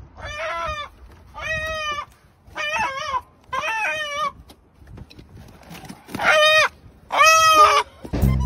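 A chicken squawking repeatedly as it is pulled from a car's engine bay: four calls about a second apart, a pause, then two more.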